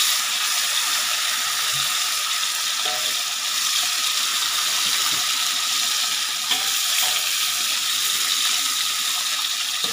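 Turmeric-coated fish slices deep-frying in hot oil in a wok: a steady sizzle, with one light click about six and a half seconds in.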